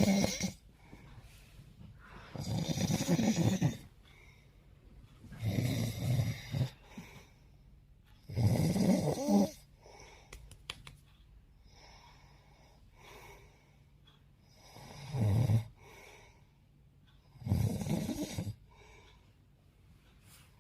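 A sleeping man snoring heavily: a snore on each breath, every two to three seconds, with a pause of about five seconds of quieter breathing midway.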